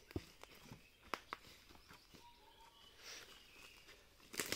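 Footsteps and rustling in dry leaf litter, with a few sharp knocks as sawn wooden planks are lifted and carried. The loudest knocks come about a second in and again near the end.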